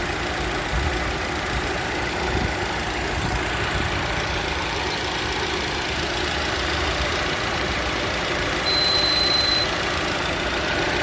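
Lada Vesta's H4M 1.6-litre four-cylinder engine idling, with a short high-pitched whistle about a second long near the end. The whistle comes from the area of the alternator and timing chain, and the owner suspects the drive belt.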